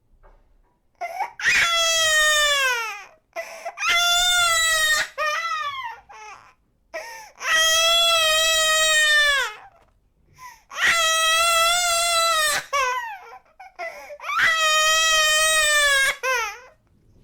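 Baby crying in a run of five long, high-pitched wails, each falling in pitch at its end, with short catching breaths and sobs between them.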